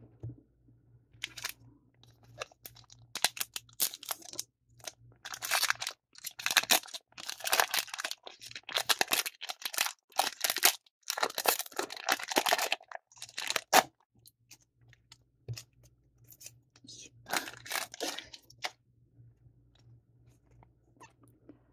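A foil Digimon Card Game booster pack being torn open and crinkled by hand: a run of irregular crackling rustles, thickest in the middle and thinning out near the end.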